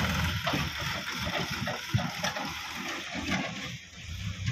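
Sonalika DI 35 diesel tractor running as it pulls a tipping trailer over rough ground, with an uneven rumble and crackle.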